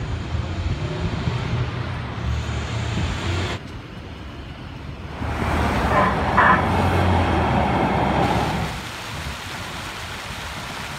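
Street traffic: cars running past on a city road, a low rumble that swells as a louder vehicle passes in the middle, then settles to a steady background hum.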